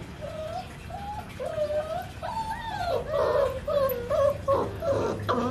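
Pakistani bully (Bully Kutta) puppy whimpering: a string of short, wavering whines that come thicker and louder after about two seconds.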